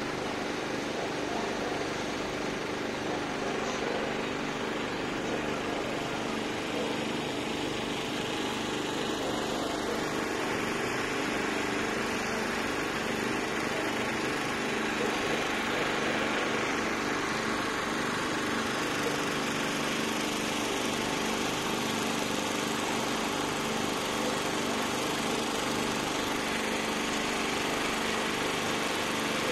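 A steady mechanical engine hum drones on without a break, its tone colour slowly shifting twice.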